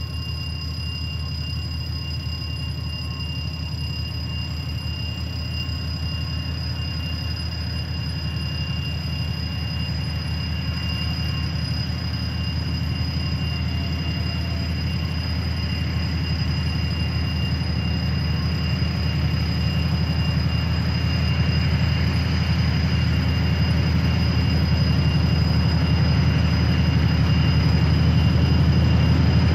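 Low drone of an approaching 2TE10L twin-section diesel locomotive's two-stroke engines, growing steadily louder as it nears, with a steady high-pitched whine above it.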